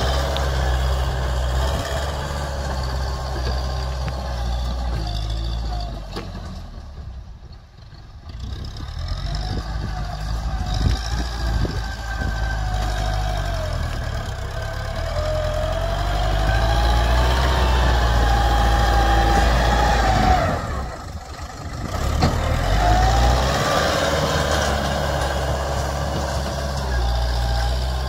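Tractor engine running under load as the tractor pushes soil with a front dozer blade. It is a steady low drone with a whine that rises and falls in the middle. The sound drops away briefly twice.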